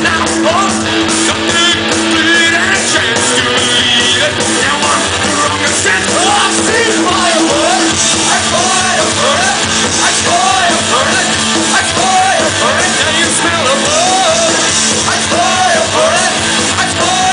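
Punk rock band playing live: a male singer over electric guitar, bass guitar and drums, loud and continuous, with the sung line rising and falling in a repeated phrase through the second half.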